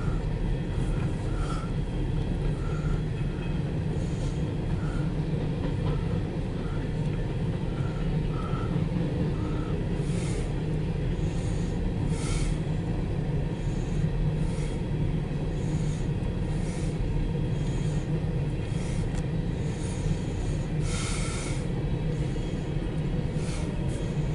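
CSX empty coal hopper train rolling past: a steady low rumble of wheels on rail, heard from inside a car. Short faint high chirps repeat about every half second to second through the first several seconds, with a few brief hissy bursts later.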